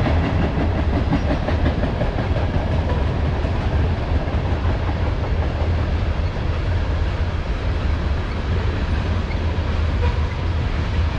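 Freight train passing: a loud, steady rumble of railcars rolling along the track.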